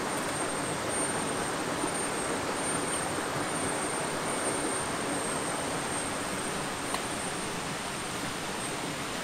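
Shallow rocky stream flowing over stones, a steady even rush of water, with a thin steady high-pitched whine above it and one faint click about seven seconds in.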